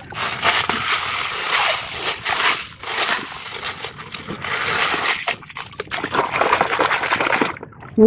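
A hand stirring and digging through wet gravel in a plastic toy truck bed: stones scraping and clattering against each other and the plastic, with water sloshing. It stops shortly before the end.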